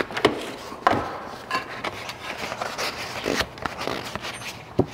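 Tin snips cutting through a piece of chipboard, with a few crisp snips in the first second. The cardboard then rubs and scrapes as it is handled, with one more snip or tap near the end.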